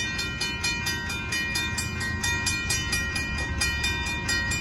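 Railroad crossing warning bell ringing in rapid, even strikes, several a second, over the low rumble of an approaching train.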